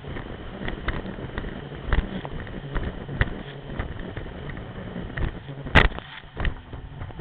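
Sea-Doo RXP-X 255 personal watercraft running at speed over choppy water: its engine runs under a string of hull slaps and splashes, with one loud slam of spray near the end.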